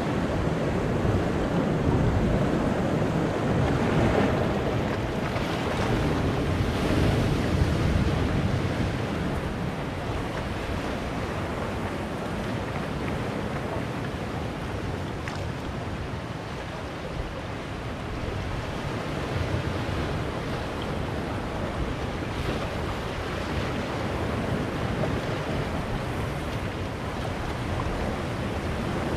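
Sea surf breaking and washing among boulders on a rocky shore: a continuous rush of water that swells and eases as the waves come in, loudest in the first several seconds.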